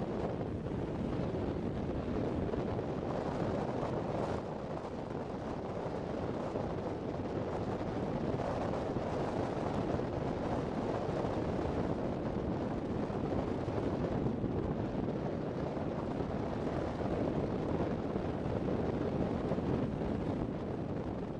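Wind buffeting an outdoor camera microphone: a steady rushing rumble with no distinct engine tone.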